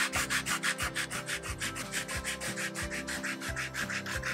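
Sandpaper rubbed by hand over a rubber tire sidewall in quick back-and-forth strokes, about six a second. The rubber around a sidewall cut is being roughed up as the bonding surface for a repair patch.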